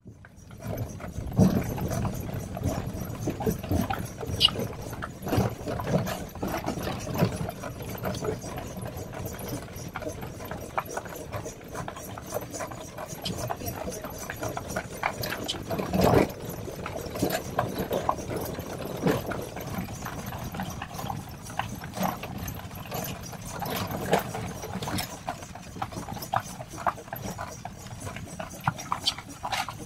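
Hooves of a horse clip-clopping as it pulls a cidomo horse cart.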